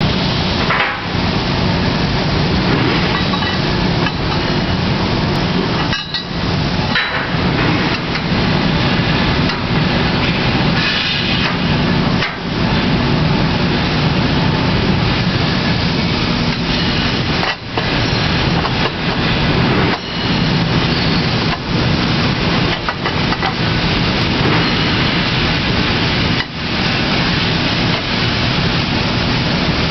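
Loud, steady factory machinery noise, dense and unbroken apart from brief dips every few seconds.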